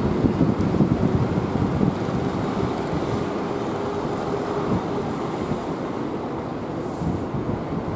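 Boeing 737-800's CFM56 jet engines at taxi power, a steady rumble with a faint whine, heard across the airfield with wind buffeting the microphone.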